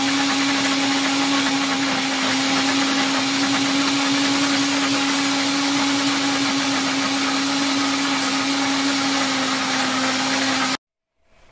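Countertop blender running steadily at speed while blending a smoothie: a loud, even motor whir with a constant hum. It stops abruptly near the end.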